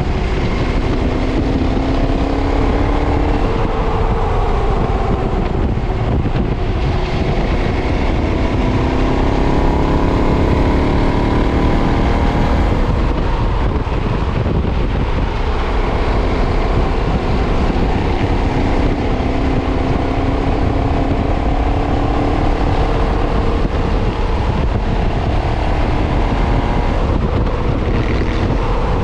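KTM 990's V-twin engine through its stock exhaust under way, its pitch climbing and falling several times as the bike accelerates and eases off, with wind rumble underneath.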